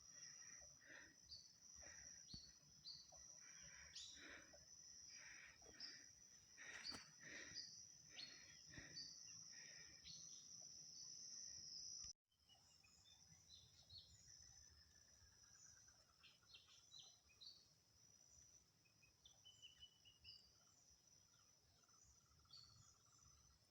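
Faint forest ambience: a steady high-pitched insect drone with scattered bird chirps. The sound cuts out completely for a moment about halfway through, then comes back quieter.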